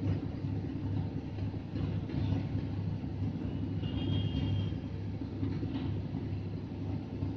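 Steady low background rumble, with a few faint brief rustles.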